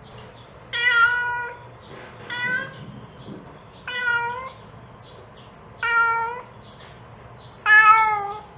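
A mother cat meowing to call her kittens: five short meows about every one and a half to two seconds, the last one the loudest.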